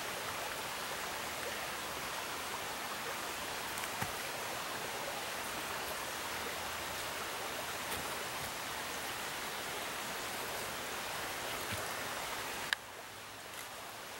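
Steady, even rushing noise, water-like, that drops abruptly with a sharp click about thirteen seconds in, leaving a quieter hiss with a few faint ticks.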